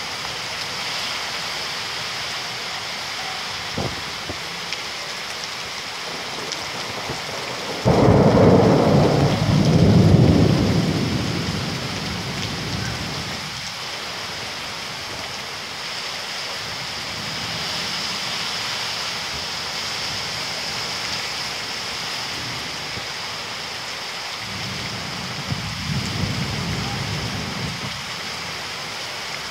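Heavy rain falling steadily. About eight seconds in, a sudden loud clap of thunder rumbles for a few seconds before fading. A fainter rumble of thunder comes near the end.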